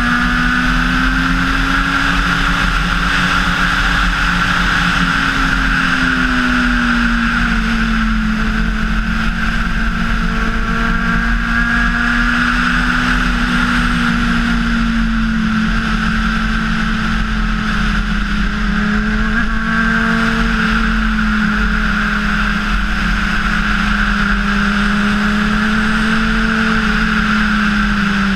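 Honda CBR600RR inline-four engine running at a steady cruise, its note rising and falling slightly with the throttle, over a constant rush of wind.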